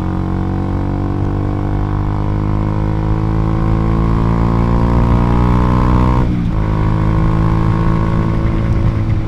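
Single-cylinder motorcycle engine of a Honda CBR150R breathing through an RX8 aftermarket exhaust with a 50 mm pipe, pulling under way with the revs climbing slowly. About six seconds in the revs drop at an upshift, then climb again.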